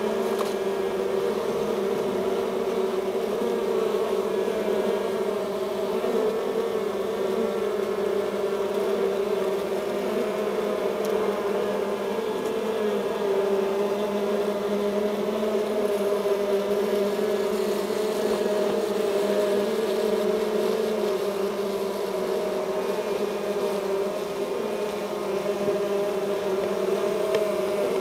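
Honeybee colony humming inside the hive: the steady, even buzz of many bees crowded on the comb.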